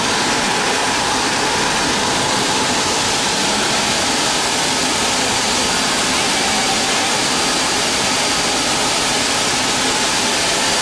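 Steady loud rushing hiss of the indoor artificial-snow machinery blowing snow down from the roof, with a faint steady whine in it.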